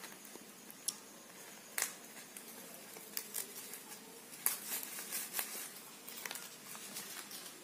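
Sal leaves rustling and crackling as hands fold them into a parcel, in scattered short crackles with a few louder snaps.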